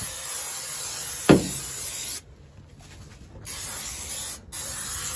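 Aerosol can of spray glue hissing in bursts: a spray of about two seconds, a pause, a short spray, then spraying again near the end. A single sharp knock, the loudest moment, comes about a second in.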